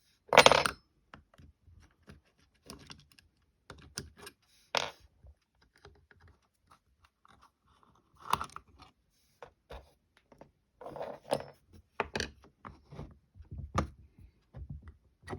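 An old Milner's lever safe lock being taken apart by hand: irregular metal clicks, taps and scrapes as its parts are handled, with a louder knock about half a second in.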